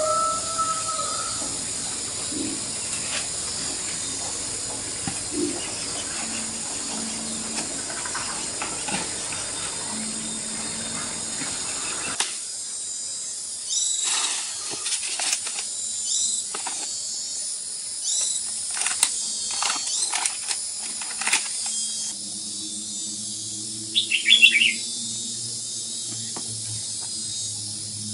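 Seed packets and plastic bags crackling and rustling in short bursts as they are handled, over a steady high-pitched background drone. A short, loud bird-like chirp comes near the end, and a low hum sets in shortly before it.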